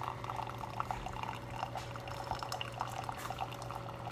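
Keurig K-Elite coffee maker brewing quietly: coffee trickling and dripping into a mug, over a low steady hum.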